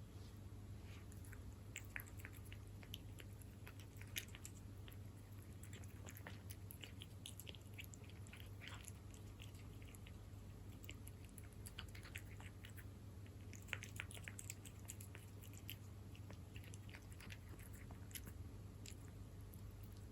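A cat chewing wet food in jelly: soft, irregular wet clicks of chewing and biting, with a low steady hum underneath.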